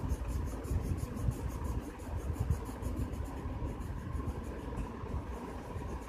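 Colour pencil scratching on paper in rapid, even back-and-forth colouring strokes, over a louder low rumble.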